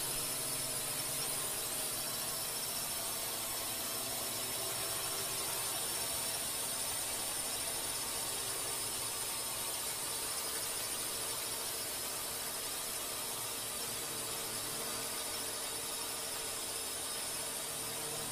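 A steady high-pitched whine over an even hiss, with several unchanging tones layered in it, like a machine running at constant speed.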